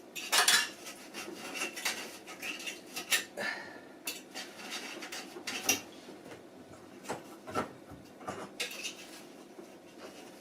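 Hard objects being handled by hand: irregular clinks, clatters and scrapes, the loudest cluster about half a second in.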